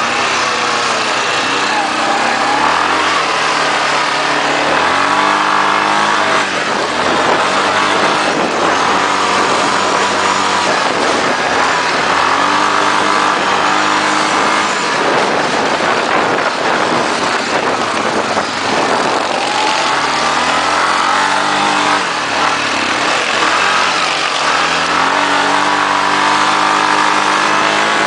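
Engine of an off-road motor vehicle running hard on a dirt track. It revs up in steps and drops back several times, as if shifting through the gears, over a constant rushing noise.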